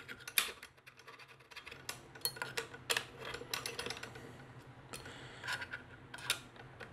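Irregular light metallic clicks and taps as an Allen key turns and seats screws in a metal camera-cage plate, with small handling knocks of metal parts. The louder clicks come just after the start and about three seconds in.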